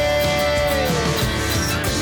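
Pop song with guitar and a steady beat; a held note slides down about a second in.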